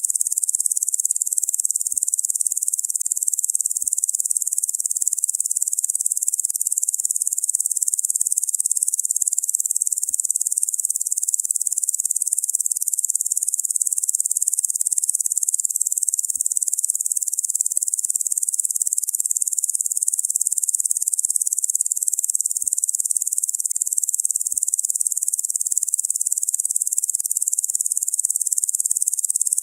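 Locusts chirring: a steady, dense, high-pitched insect drone that holds unchanged without a break.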